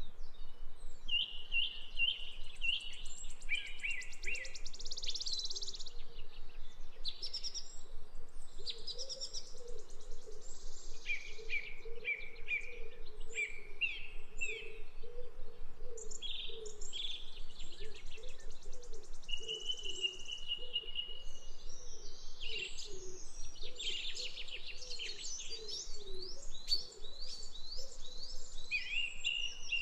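Several songbirds singing and chirping at once, overlapping short trills and whistled phrases, with a softer, lower warbling repeating underneath and a faint steady hiss.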